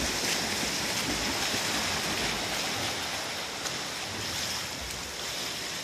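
Steady splashing and churning of pool water from swimmers kicking hard down the lane.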